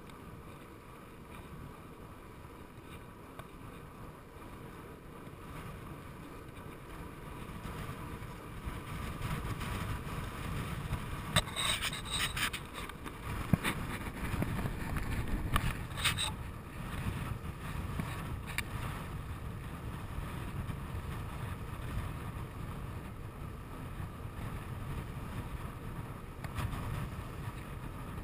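Wind rushing over a handlebar-mounted action camera's microphone and tyre rumble from a bicycle rolling on asphalt, growing louder about a third of the way in. A few short clicks and rattles sound about halfway through.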